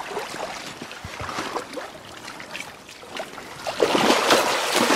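A hooked taimen splashing and thrashing at the surface of shallow river water, louder from about four seconds in, over the steady rush of the current.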